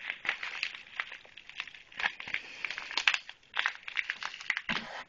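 Plastic mailer package crinkling and rustling in quick, irregular crackles as it is gripped and pulled at by hand, in an attempt to tear it open.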